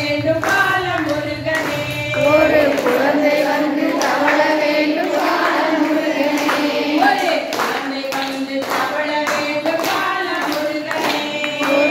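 A group of women singing a devotional song together, clapping their hands in a steady rhythm.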